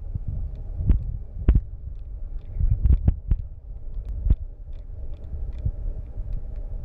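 Handling noise on a hand-held recording device's microphone: a steady low rumble with about six irregular thumps and knocks, most in the first half.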